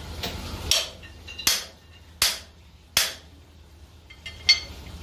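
Hammer blows on metal: five sharp, ringing strikes about three-quarters of a second apart, with a longer pause before the last, over a low steady hum.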